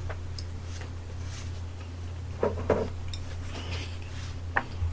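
Tableware sounds of eating: a few soft, short taps and clicks of chopsticks and dishes, over a steady low hum.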